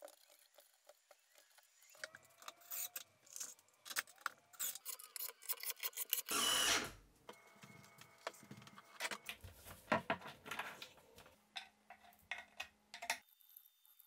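Scattered light clicks and knocks of wooden furniture panels and metal cabinet hinges being handled and fitted, with one short rushing noise about six and a half seconds in.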